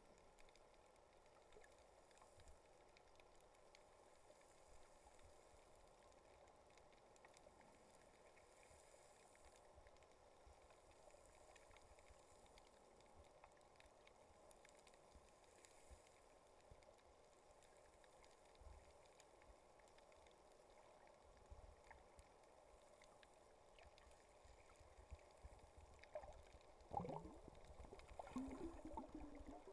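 Near silence of a camera filming underwater: a faint, muffled water hiss, with louder gurgling water sounds starting near the end.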